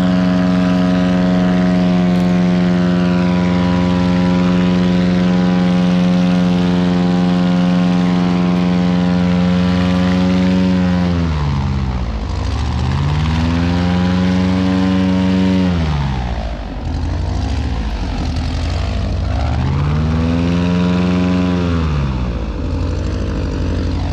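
Airboat's engine and rear air propeller running at full throttle, a loud steady drone, straining to drag the swamped hull off the bank. About eleven seconds in the revs fall and climb back, twice, then fall again near the end.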